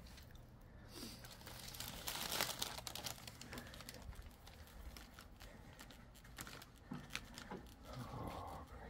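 Plastic cookie wrapper crinkling and rustling in the hand, with scattered crackles, loudest about two seconds in.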